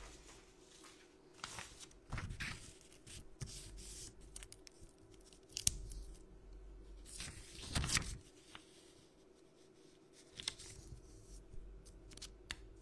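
A sheet of printer paper torn by hand and handled, in several separate rips and rustles.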